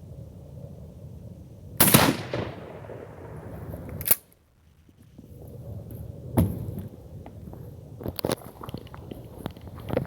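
A shotgun with a long bird barrel and full choke fires one loud buckshot round about two seconds in, its report trailing off for about a second. Sharper, quieter knocks and clicks follow later.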